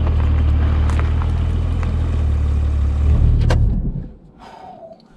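Porsche 718 Cayman GT4's 4.0-litre flat-six engine and tyres droning at a steady, unchanging pitch as the car drives along, heard from outside beside a wheel. About four seconds in the sound drops away sharply to a much quieter cabin hum.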